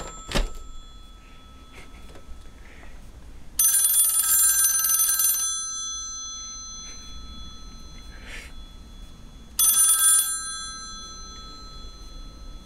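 Mechanical bells of a push-button desk telephone ringing in two bursts, the first about two seconds long and the second, about six seconds later, much shorter, each ringing on as it fades. Right at the start, a short clatter as papers tumble off the shelf.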